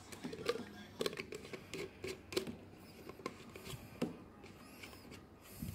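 Plastic lid of a portable electric blender cup being fitted and screwed on by hand: scattered light clicks and taps of plastic on plastic, with no motor running.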